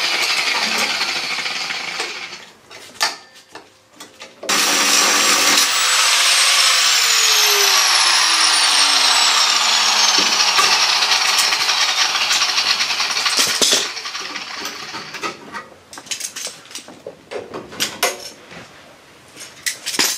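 Hand-held power tool cutting through the van's rusty sheet-steel wheel arch: a short run, a brief burst, then a long run of about nine seconds whose pitch slides down under load. After it stops, scattered light metal clinks and knocks as the cut steel is worked loose.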